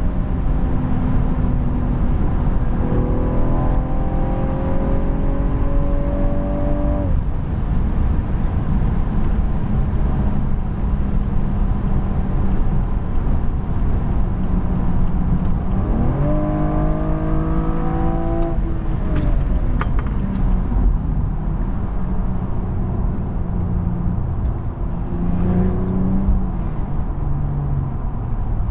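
Inside the cabin of a BMW M135i with its turbocharged straight-six under load, over steady road and tyre roar. The engine note climbs from about 3 s to 7 s, then drops. About 16 s in the revs jump suddenly as the automatic kicks down and keep rising for about two seconds before falling away, followed by a few sharp clicks; a shorter rise comes near the end.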